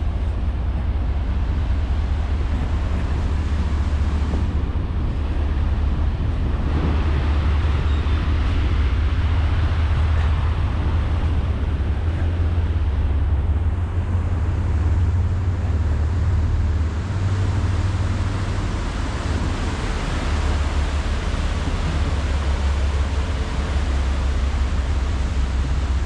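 Steady outdoor city ambience: a constant rumble and hiss of road traffic, with a heavy low rumble throughout.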